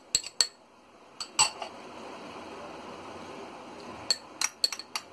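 Steel spoon clinking and scraping against white bowls as chopped vegetables are scraped from a small bowl into a larger one: a few quick clinks, a louder one about a second and a half in, a softer steady hiss after it, and another run of clinks near the end.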